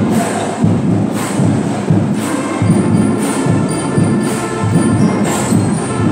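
School concert band playing, clarinets and saxophones among the winds, over a percussion stroke that falls about once a second.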